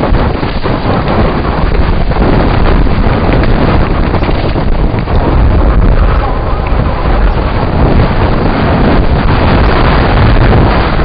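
Wind rushing over the microphone of a camera on a mountain bike descending a dirt track at speed, over a steady low rumble of tyres on the rough ground.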